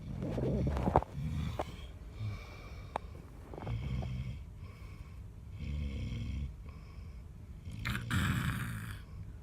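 A woman snoring: a run of short, uneven low-pitched snores, roughly one a second, with a longer, breathier one about eight seconds in.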